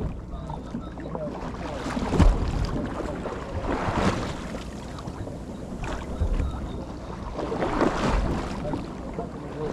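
Small fishing boat at sea: wind and water noise over a low steady hum, with irregular louder surges and a thump about two seconds in.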